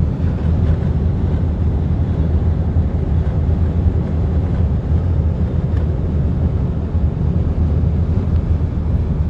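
Steady wind and road noise of a 2019 Skoda Octavia on the move: a deep, even rumble with a hiss above it that holds unchanged.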